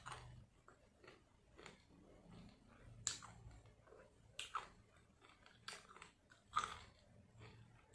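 Mouth chewing crunchy fried chicken: soft, faint crunches and mouth sounds, with a few sharper crunches in the second half.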